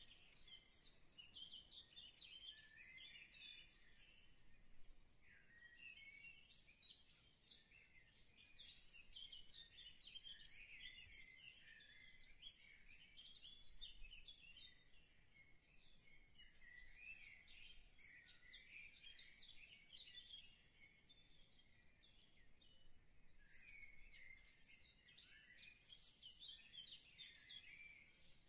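Faint birds chirping: a busy, continuing stream of short high chirps and trills, with brief lulls around 6 and 22 seconds in.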